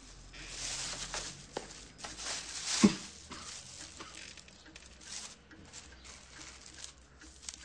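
Soft rustling and scraping noises with a few light clicks, and one thump about three seconds in, the loudest sound.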